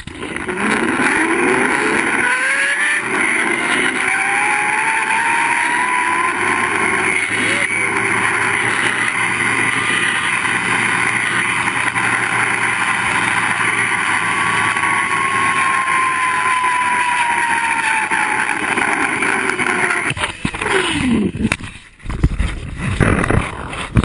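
Zip-line trolley pulleys rolling along the steel cable, under a steady rushing noise. Their whine rises in pitch over the first few seconds as the ride speeds up, holds, then slowly falls as it slows. About twenty seconds in the rolling drops off with a short falling whine as the trolley brakes to a stop, followed by a few knocks and rattles.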